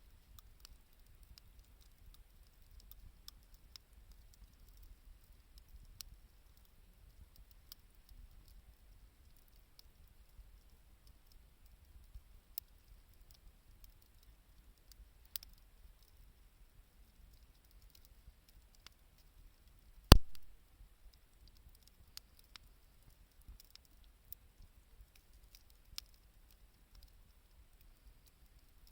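Campfire crackling: scattered small pops and ticks at irregular intervals, with one sharp, much louder pop about twenty seconds in.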